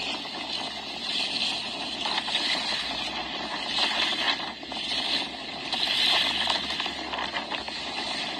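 Steady rushing of fast-flowing floodwater, a noisy hiss that swells and eases every second or two.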